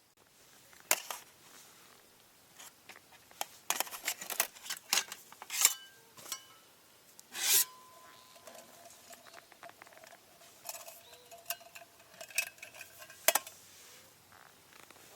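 Camp gear and metal utensils being handled: a scattered run of clicks, clinks and short scrapes, the loudest about halfway through, with a faint thin ringing in the middle stretch.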